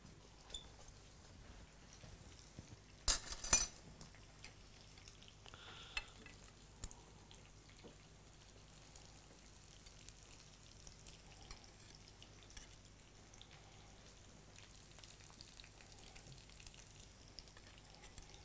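Metal kitchen tongs and a utensil clinking against a pan and a plate while food is lifted out and plated: a quick cluster of clatters about three seconds in, then a few faint taps.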